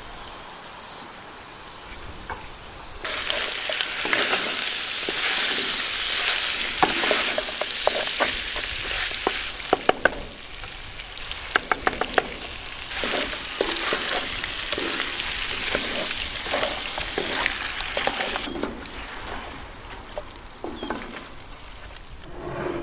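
Lamb pieces sizzling as they fry in a hot pot, with a wooden spoon stirring and knocking against the pot as chilli and tomato paste is worked in. The sizzle grows loud about three seconds in, and sharp clicks and knocks from the spoon come thickest in the middle.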